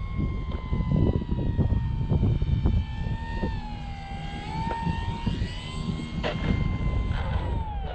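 Electric motor and propeller of a Dynam Cessna 188 RC model plane whining in flight, its pitch wavering and then falling away near the end. Wind buffets the microphone throughout.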